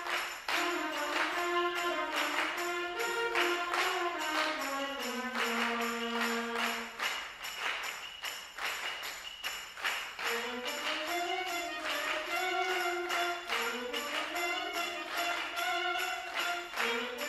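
A middle-school concert band playing: wind instruments carry a winding melody that rises and falls over a steady beat of percussion strokes. About five seconds in, a low note is held for around two seconds before the melody resumes.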